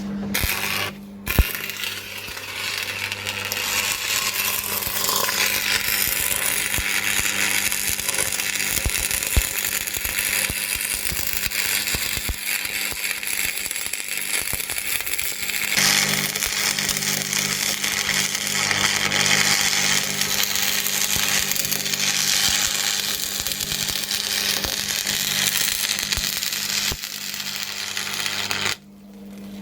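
Stick (arc) welding on a car differential being welded solid to lock it: the arc strikes about a second in, then fizzes and crackles steadily over the welder's hum for nearly half a minute, and cuts off abruptly near the end.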